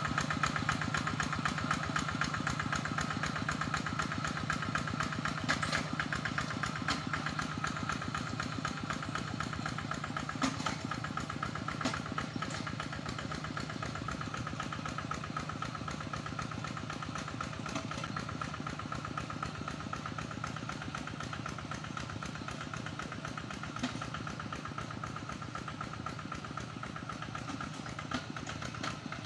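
Single-cylinder diesel engine of a two-wheel hand tractor running steadily with a rapid chugging beat while it pulls through a flooded rice paddy, slowly growing fainter, with a few faint clanks.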